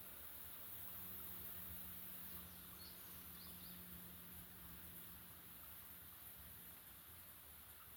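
Near silence: a faint steady hiss with a low hum underneath, and a few faint short high chirps about two and a half to three and a half seconds in.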